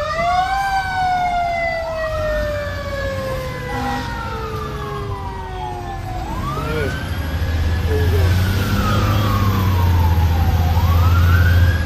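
A fire engine's siren, heard from inside the cab. About four times its pitch climbs quickly and then winds slowly down. A low diesel drone builds under it in the second half.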